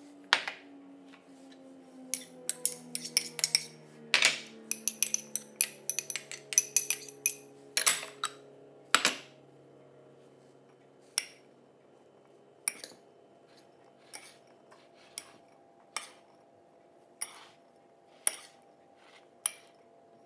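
Metal spoon and fork clinking and scraping against ceramic bowls and a plate as shredded chicken, peas and corn are tipped into a bowl and stirred: a quick run of clinks in the first half, then single clinks a second or so apart.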